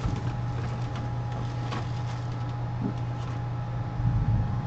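Steady low background hum with a few light clicks as the laptop's hinge area and lid are handled; a louder low rumble comes up near the end.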